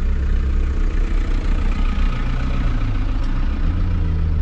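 A vehicle engine running steadily at low revs, its pitch stepping up and down a couple of times.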